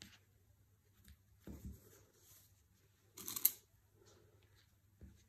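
Cotton fabric and lining rustling and sliding on a cutting mat as the layers are lined up and pinned together: a few short, soft rustles, the loudest about three and a half seconds in.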